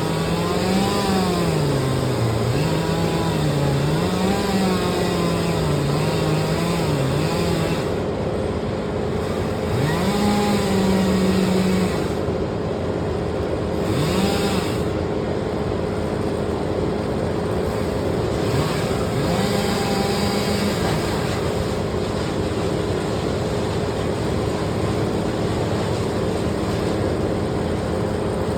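Chainsaw engine revving up and down repeatedly, with pauses between runs, over a steady engine drone.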